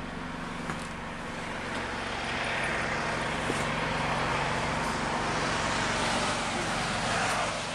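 Steady outdoor vehicle noise: a low hum with a hiss of traffic over it, swelling about two seconds in.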